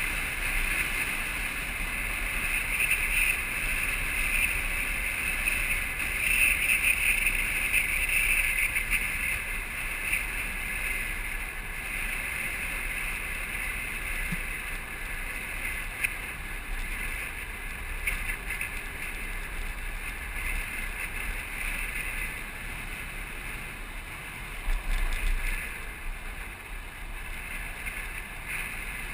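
Land yacht under sail on a hard dry lakebed, heard from a camera mounted on its frame: a steady rush of wind over the microphone mixed with the rolling noise of its wheels, with a brief louder low rumble about 25 seconds in.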